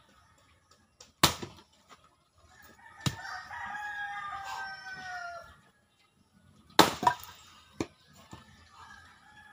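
An axe chopping firewood on a block: two loud sharp chops about five and a half seconds apart, each followed by a lighter knock. Between the chops a rooster crows once, a long call that falls slightly in pitch.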